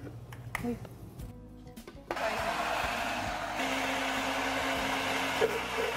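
Electric countertop blender switched on about two seconds in, after a few light knocks, then running steadily as it purées boiled cará yam chunks with olive oil and water into a thick cream; its motor note shifts slightly a moment later.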